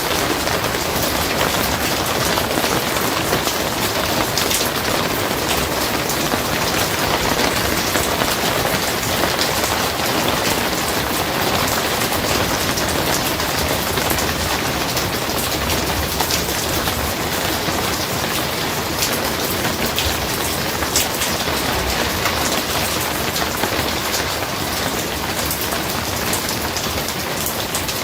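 Steady heavy rain drumming on a barn roof, a dense even patter of drops with many small sharp ticks.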